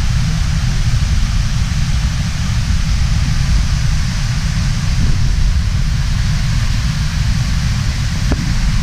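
Loud, steady rush of a tall waterfall, an even roar with a heavy low rumble.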